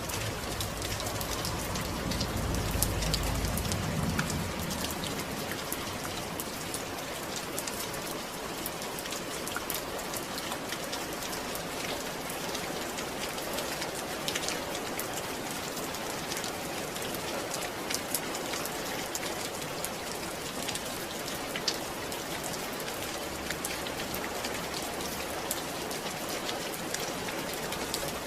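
Steady rain falling on a surface, with many single drops ticking sharply through it. A low rumble swells and fades about two to five seconds in.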